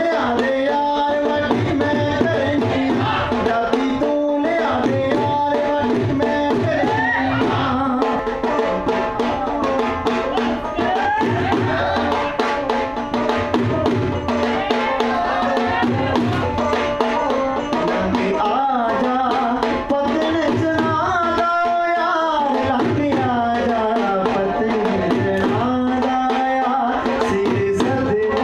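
Punjabi folk music for a jhumar dance: a dhol drum beats a steady rhythm under a gliding melody line.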